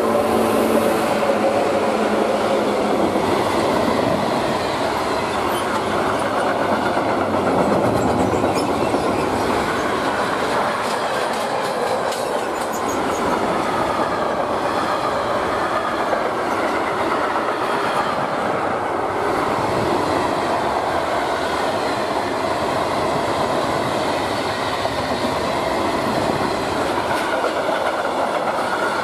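Freight train hauled by a DB Cargo Class 187 electric locomotive passing close by at speed. After the locomotive, a long line of freight wagons rolls past with a loud, steady rumble and the clatter of wheels on the rails.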